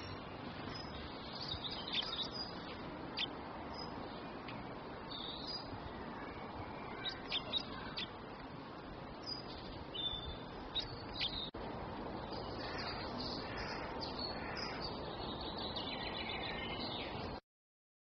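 Small songbirds chirping: scattered short, high chirps over a steady background noise. There is a brief dropout about two-thirds of the way through, and the sound cuts off just before the end.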